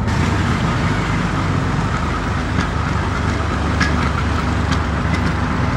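Engine hum and road noise of a moving vehicle, heard from inside it, steady throughout.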